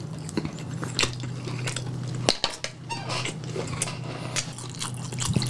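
Close-miked mouth sounds of biting and chewing a cheese-filled sausage hot bar, with scattered small clicks and knocks.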